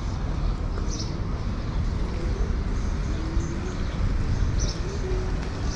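Street ambience: small birds chirping, short chirps about once a second, over a steady low rumble of distant traffic.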